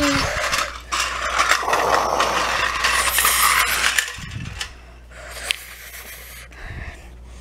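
Plastic toy trucks being pushed across a tile floor: wheels rolling and scraping with light plastic clatter, louder for the first four seconds, then quieter with a few scattered clicks.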